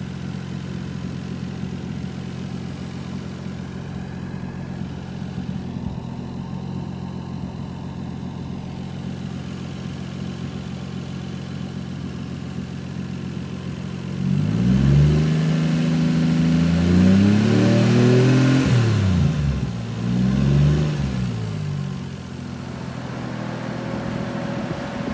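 Toyota 1JZ VVTi straight-six idling steadily, then revved up and down twice, with the second rev shorter, from about 14 s to 22 s, before settling back to idle. The engine is running so the coolant can be burped of air.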